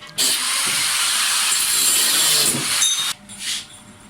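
A piece of metal being cut off: a loud, steady harsh hiss that starts abruptly and stops suddenly after about three seconds.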